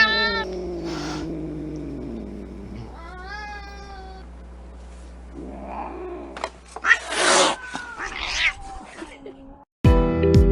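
Angry cat vocalising: a yowl that trails into a low, falling growl, a short pitched call about three seconds in, then several harsh hisses between about five and a half and nine seconds. After a brief silence, guitar music starts right at the end.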